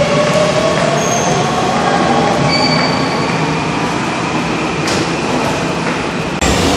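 Seoul Subway Line 9 train pulling out of the platform behind platform screen doors, its electric motors whining upward in pitch as it gathers speed over a steady rumble and hiss. The sound breaks off abruptly near the end.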